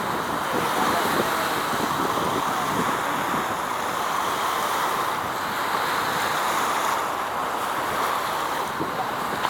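Steady outdoor wind and water noise, an even rush with no distinct events.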